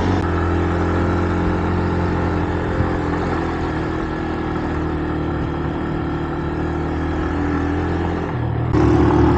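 A 125 cc single-cylinder motorcycle engine running steadily at low revs, then opened up and getting louder near the end.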